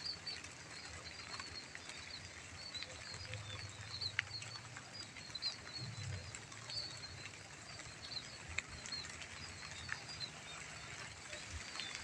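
Light drizzle falling on a rice paddy: a soft, even hiss of rain with scattered sharp drop ticks, over a steady chorus of high-pitched chirping. A few short, low animal calls come through faintly about three and six seconds in.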